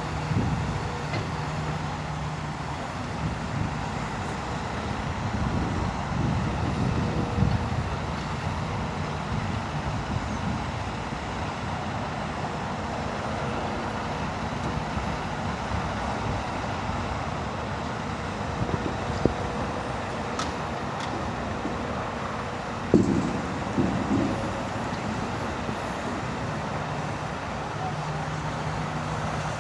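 Diesel engines of heavy construction machinery running steadily with a low hum, with a few brief knocks and a thud about 23 seconds in.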